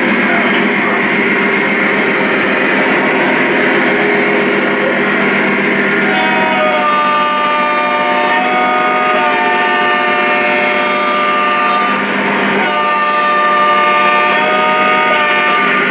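Onboard sound system of Lionel Legacy Union Pacific ES44 model diesel locomotives playing a steady diesel engine rumble. About six seconds in, a multi-note chime horn sounds in a long blast, pauses briefly near twelve seconds, then sounds again in a second long blast.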